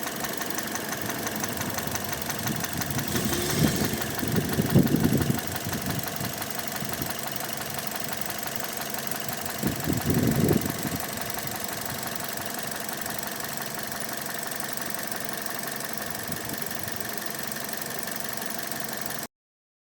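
Mazda 6 2.0-litre engine running with a rhythmic rod knock: the connecting rod knocking against the crankshaft because the rod bearings of the first cylinder have spun and are breaking up. It swells louder twice, about four seconds in and about ten seconds in, and the sound cuts off just before the end.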